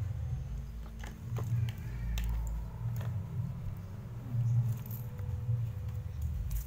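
A steady low rumble with scattered light clicks and taps.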